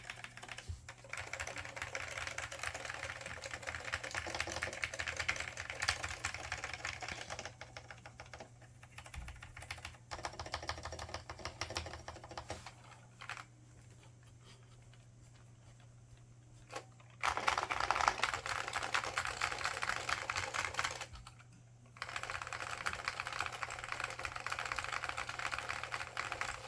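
Typing on an IBM 5556-001 Multistation keyboard with Alps SKCL Green switches and ABS doubleshot keycaps: fast runs of keystrokes. The typing stops for about four seconds around the middle, with one lone keystroke in the gap, then resumes in quick bursts. A steady low hum runs underneath.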